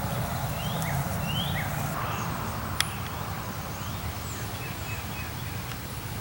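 Outdoor ambience: a few birds chirping with short rising calls in the first two seconds, and a single sharp click a little under three seconds in, over a steady low rumble.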